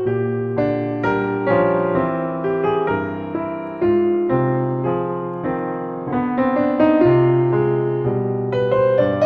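Background piano music: a gentle melody of struck notes, each fading after it is played, with steady chords underneath.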